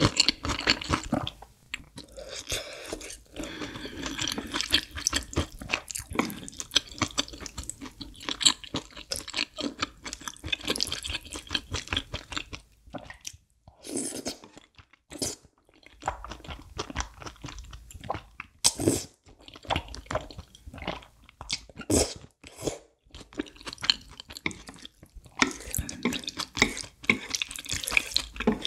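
Close-miked chewing of a crispy deep-fried cheese pork cutlet, with dense crunching of the breaded crust. About halfway through comes a short slurp of creamy udon noodles, followed by sparser, wetter chewing, and the crunching picks up again near the end.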